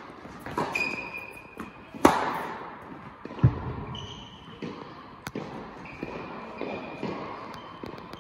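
Tennis ball struck by rackets and bouncing on an indoor hard court, each hit ringing out in the hall's echo; the loudest hit comes about two seconds in. Short high squeaks of tennis shoes on the court surface come between the hits.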